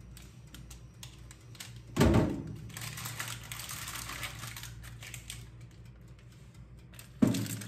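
Metal baking tray set down on top of a countertop toaster oven with a loud clunk about two seconds in and again near the end, with light clicking and rattling as the tray is handled in between, over a low steady hum.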